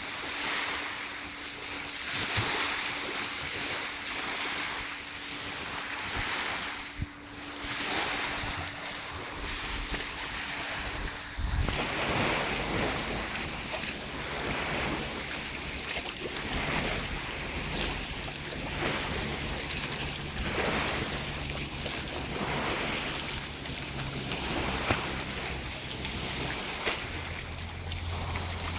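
Small waves on Lake Baikal washing and splashing in repeated swells, with wind on the microphone. A faint steady low hum runs underneath and shifts lower in pitch about halfway through.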